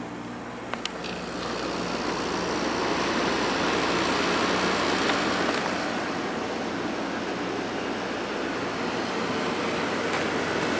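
Hotpoint 8400 BTU window air conditioner switched on to low: a couple of clicks from the control about a second in, then the rush of its fan builds over a second or two and runs steadily with a low hum underneath.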